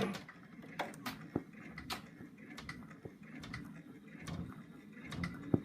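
Home embroidery machine stitching a placement line through bare stabilizer: a low motor hum with light, irregular needle ticks, getting louder near the end.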